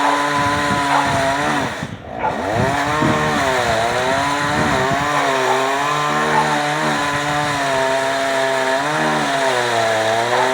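Gas chainsaw running at high revs while cutting wood, its engine note sagging and recovering again and again under load. About two seconds in it briefly drops off toward idle, then revs back up.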